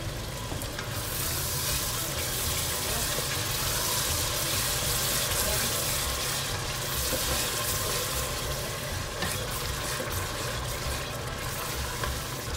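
Onion and tomato-paste masala sizzling in a steel pot as it is stirred with a wooden spoon. A steady sizzle that grows stronger about a second in.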